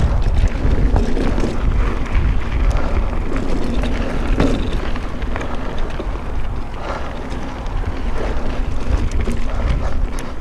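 Wind buffeting the microphone during a mountain bike ride on a Specialized Stumpjumper, over a steady rush of tyres on a dirt trail, with scattered knocks and rattles from the bike.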